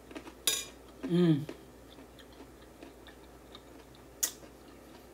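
Eating sounds: a fork clicks sharply against the plate twice, once about half a second in and again near the end, with soft chewing between. About a second in comes a short hummed 'mmm' that rises and falls in pitch.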